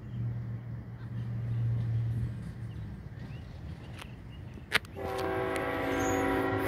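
Low engine rumble of diesel freight locomotives. About five seconds in, their air horn starts sounding a held chord of several notes at once.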